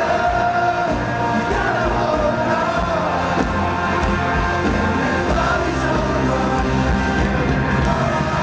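A rock band playing live with a lead vocal over it, recorded from within an arena audience.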